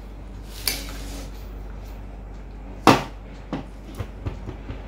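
Metal spoon clinking against a steel bowl of mango pieces: a light clink near the start, one sharp clink about three seconds in, then several lighter taps.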